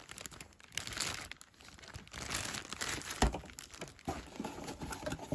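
Thin clear plastic bag crinkling as it is handled, with a single thump a little over three seconds in as the bagged unit is set down.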